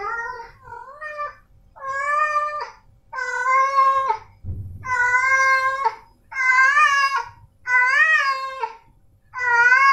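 Male tabby cat meowing loudly over and over, about eight drawn-out calls roughly a second apart, each rising and then falling in pitch. These are the insistent calls of a tom in heat calling for a female.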